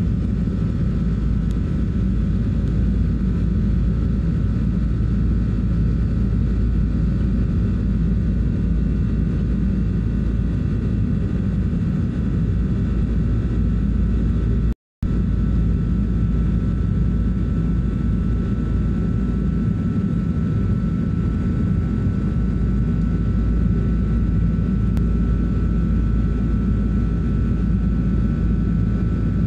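Airliner turbofan engine heard from inside the cabin during the climb after takeoff: a steady, loud low engine noise with a thin constant whine above it. The sound drops out completely for a split second about halfway through.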